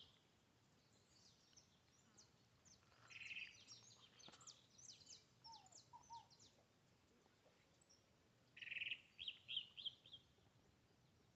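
Songbirds singing faintly: one bird gives its phrase twice, a short buzzy note followed by a quick run of high chirps, while other birds add scattered rapid high chirps and a few softer, lower down-slurred notes in between.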